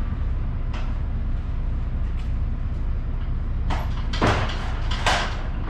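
Knocks and clatters of pallets and load being handled inside a truck trailer, several in a row in the second half, over a steady low hum.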